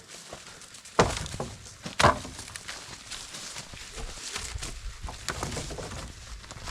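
Two sharp knocks about a second apart, followed by a run of lighter crackles and knocks.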